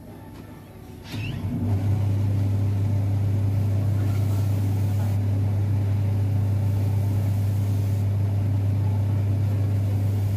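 Shoe finishing machine's electric motor switching on about a second in and then running steadily with a loud, constant low hum as its spinning brushes and wheels turn while a shoe is polished on them.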